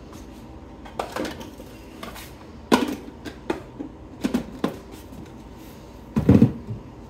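Kitchen clatter: scattered knocks and clinks of dishes and pans being handled, over a faint steady hum. The loudest thumps come about six seconds in.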